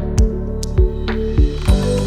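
Background music with a steady beat: a low drum hit about every 0.6 seconds under sustained pitched notes.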